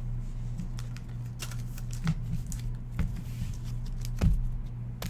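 Trading cards being handled and set down on a tabletop mat: a few soft taps and clicks of card on card, over a steady low electrical hum.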